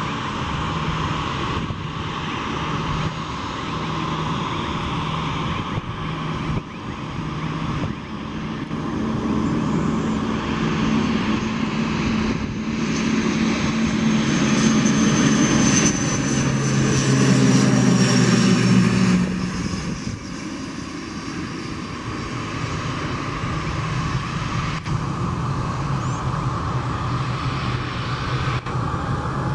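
ATR 72-600 twin turboprop landing, its propellers giving a steady droning hum. It grows loudest as the aircraft passes close, about halfway through, and the pitch drops as it goes by, then it runs on steadily after touchdown.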